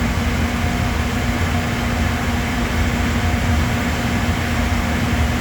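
Steady drone of running workshop machinery: a low rumble and an even rushing noise with a constant hum.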